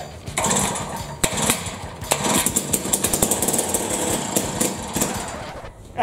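Tecumseh two-stroke engine on a Jiffy ice auger running roughly with uneven firing, its first start after the carburetor diaphragm was cleaned and refitted, then dying away just before the end.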